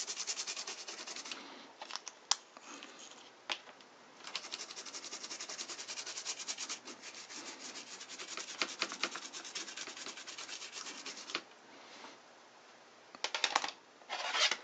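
A small brush wet with isopropyl alcohol scrubbing rapidly back and forth over a cassette recorder's printed circuit board, cleaning grime from the solder side. It goes in spells of quick, even strokes: a short spell at first, a pause of about three seconds with a few sharp clicks, a long spell of about seven seconds, then two brief scrubs near the end.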